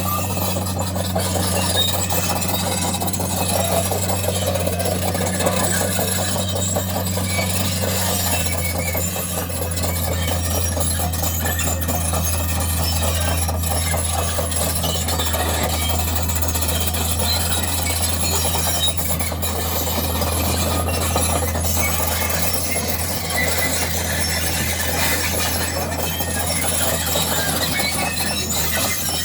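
Excavator track chains squealing and clattering as the machine travels, over the steady hum of its diesel engine. The engine note shifts about eight seconds in.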